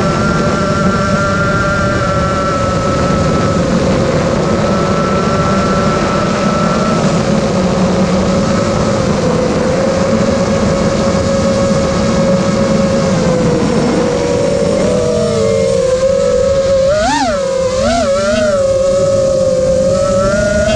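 Eachine Wizard X220 quadcopter's brushless motors and propellers whining steadily in flight, heard from the onboard camera. Near the end the pitch wavers, then shoots up and falls back three times in quick succession as the throttle is blipped.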